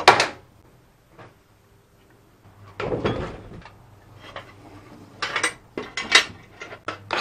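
A steel square and marker handled on a plywood sheet: a sharp knock at the start, a clatter and scrape as the square is set down and slid across the wood about three seconds in, then a run of short scrapes and taps as a line is marked along it.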